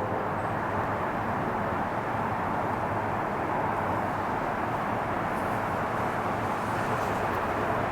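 Steady, even hum of distant traffic.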